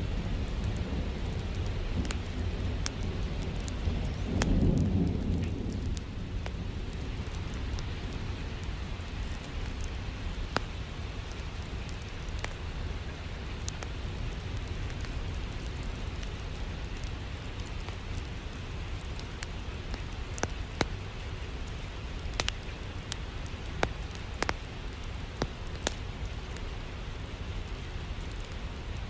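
Steady rain with a low rumble of thunder that swells about four seconds in and dies away by about six seconds. Sharp pops are scattered throughout, the crackle of a wood fire in a fireplace.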